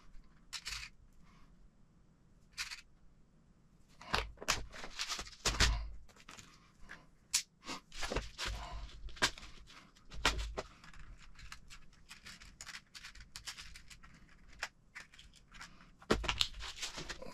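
Small metal screws clicking and rattling as fingers pick through a plastic compartment organizer box, with irregular taps and scrapes of parts and plastic boxes being handled on a work mat.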